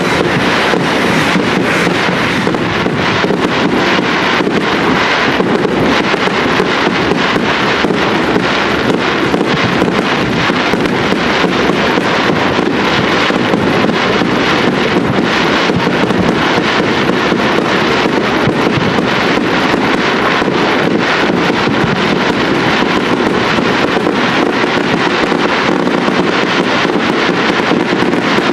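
Aerial fireworks bursting without pause: a loud, dense crackle of many quick reports over a steady rushing noise.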